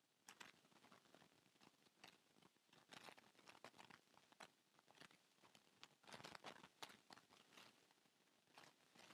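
Near silence with faint, irregular clicking from a computer mouse, with a quick cluster of clicks about six seconds in.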